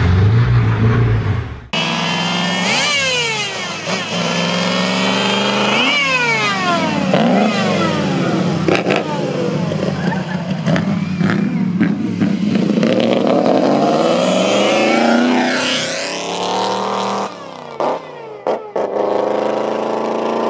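Supercharged 3.4-litre DOHC straight-eight of a 1934 Mercedes-Benz W25 Grand Prix car accelerating hard. Its pitch climbs and drops back again and again as it works through the gears, and it passes by about fifteen seconds in.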